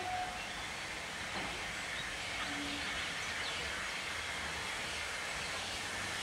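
Steam locomotive approaching slowly with an even hiss of steam and running noise. A held whistle note cuts off just after the start.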